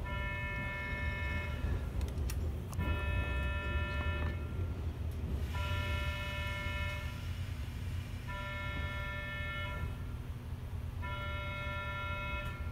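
Electronic departure bell sounding on the platform before the train doors close. It gives a buzzy tone about a second and a half long, five times, roughly every three seconds, over the steady low hum of the standing electric train.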